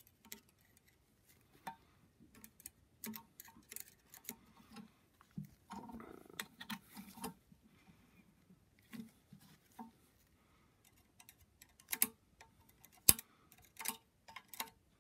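Light metallic ticks and scrapes of a small screwdriver tip picking at the split valve keepers of a compressed valve spring, the keepers stuck to the valve stem by oil. The clicks come irregularly, with short scraping spells and one sharper click about 13 seconds in.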